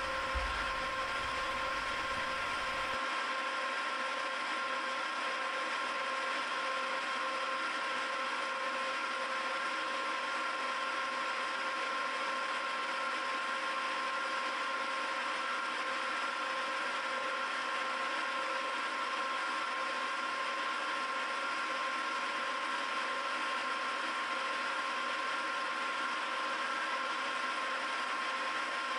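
Milling machine running steadily while a single-flute stylus cutter finishes the threads of a silver-steel gear hob: an even mechanical whir with a steady whine of a few fixed tones.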